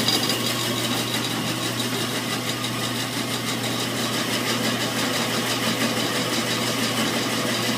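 Ridgid BS14002 14-inch bandsaw running, a steady motor hum with a fast, even rattle from the whole saw shaking and bouncing on its feet: the sign of an untuned saw with bad vibration.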